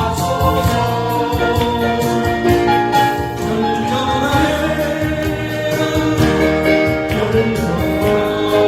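Gospel song: singing over band accompaniment with a steady beat.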